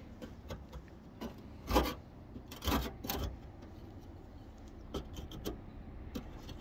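Hand chisel scraping and chipping at flaking rust and paint on the steel panel below a Ford Cortina Mk4's side window. It comes as short, uneven scrapes and small knocks, strongest a couple of times in the middle.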